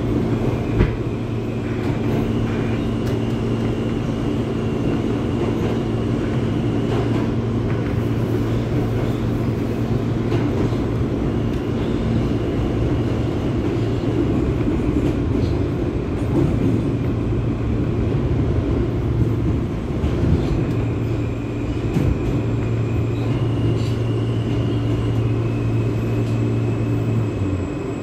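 Inside an R160 New York subway car running at speed through a tunnel: a steady rumble of wheels on rail with a low droning hum from the train, and faint high whines that come and go. A low hum drops out near the end, with a single click about a second in.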